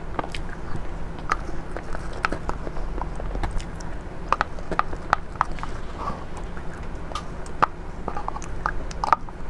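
Close-miked eating sounds: irregular wet mouth clicks and smacks as a soft cheese mousse is eaten off a wooden spoon, with the spoon scooping in the glass jar. A low steady hum runs underneath.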